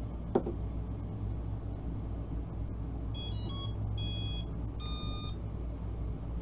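A sharp click as the Li-Po battery connector is plugged in. A few seconds later the brushless motor's speed controller (20 A ESC driving an N2830 motor) plays its power-up tones through the motor: a quick run of stepped beeps, then two longer beeps, as the controller arms.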